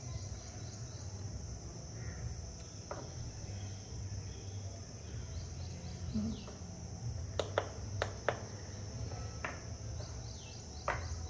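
Crickets chirping steadily over a low hum. A few sharp clicks and taps, loudest a little past the middle, come from a plastic cup being handled on a digital kitchen scale.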